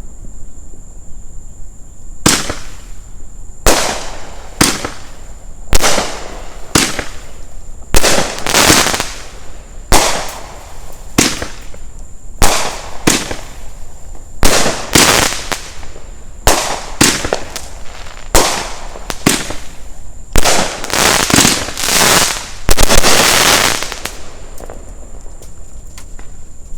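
Sky King 'Triggered' 500-gram, 12-shot fireworks cake firing: a long series of sharp shots and aerial breaks, growing denser with overlapping reports toward the end.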